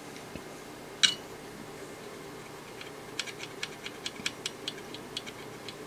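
Flux crackling and spitting under a hot soldering iron as a corroded circuit-board track is tinned with heavy flux. There is one sharp pop about a second in, then from about three seconds in a quick, irregular run of small crackles, several a second.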